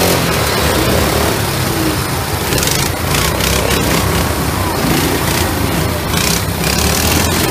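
Several small go-kart engines running together, a steady mechanical drone with a rough noisy edge.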